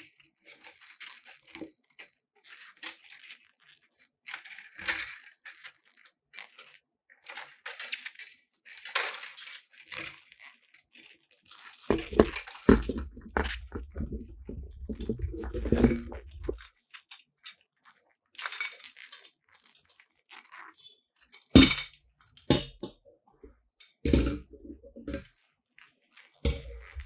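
Assembling a softbox: the nylon fabric rustles and crinkles in short bursts while thin metal rods click and knock against the aluminium speed ring. Heavier, deeper handling noise comes about midway, and a few sharp knocks come in the second half.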